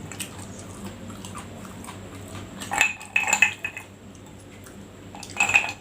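Eating at a plate: cutlery clinking and scraping against it in two short clusters, about three seconds in and again near the end, over a low, steady background.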